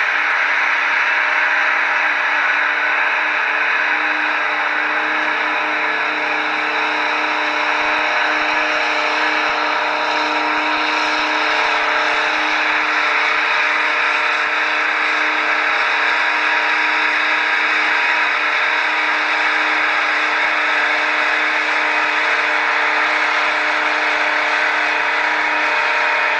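Big Bud 400/30 tractor's diesel engine running steadily while pulling a train of scrapers, its drone holding an even pitch throughout.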